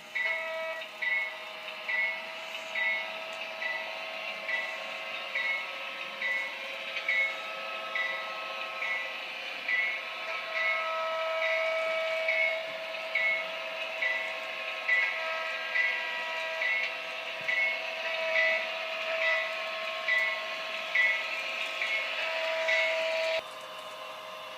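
HO-scale model locomotive's DCC sound decoder playing locomotive sounds: a steady hiss and tone with a short beat repeating a little more than once a second. The sound cuts off abruptly near the end.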